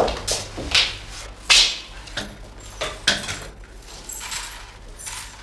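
Hand brush sweeping a hard floor into a dustpan in short, quick, irregular strokes, with a sharper knock about one and a half seconds in.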